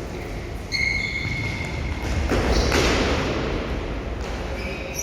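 Futsal play in an indoor hall. A sharp ringing ping about a second in, a louder noisy burst lasting about a second near the middle, and another ringing ping near the end.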